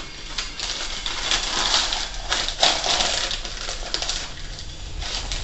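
Rustling and scraping, with scattered small clicks, as wheat flour is scooped with a measuring cup and tipped into a blender jar.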